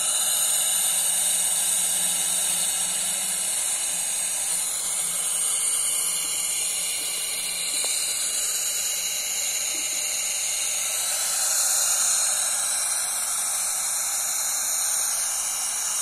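Steady static hiss from the speaker of a modified Icom IC-2N VHF transceiver, the noise of its FM receiver with the squelch open.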